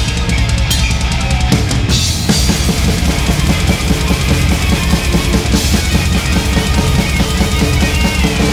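Death metal drum kit played live at fast tempo, with rapid double bass drum strokes on Czarcie Kopyto pedals under a wash of cymbals, in the band's mix.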